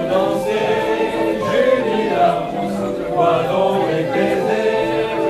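A small mixed group of men and women singing a French song together in unison, accompanied by a hand-cranked barrel organ (orgue de Barbarie) with wooden pipes.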